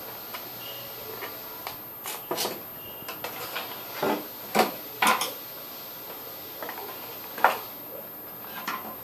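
Handling knocks and clatter as a small aluminium-framed solar panel is shifted on a table and its plastic junction box is handled. A dozen or so irregular knocks, the sharpest a pair about halfway through and a single one about three-quarters of the way through.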